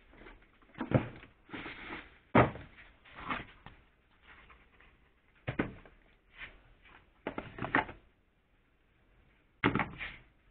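Irregular knocks, clunks and rustles of a plastic jug, cardboard boxes and plastic bags being moved about by hand in a car boot, with a near-quiet pause about two-thirds through.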